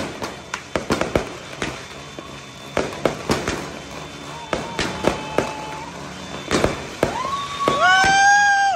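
Aerial fireworks and firecrackers going off in a rapid, irregular string of bangs and crackles. Near the end two loud pitched tones rise quickly and then hold for about a second over the bangs.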